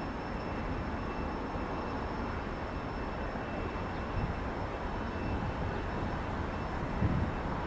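Jet engines of a Boeing 737-700 airliner heard from outside as a steady rumble with a faint high whine, plus a brief low thump near the end.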